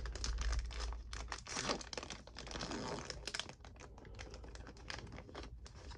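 Trading-card pack wrapper being torn open and crinkled, a dense run of fine crackles that is louder in the first half and lighter near the end as the cards come out.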